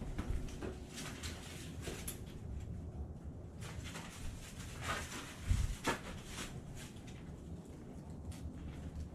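Irregular footsteps and scuffs over a low rumble, with a louder thump about five and a half seconds in.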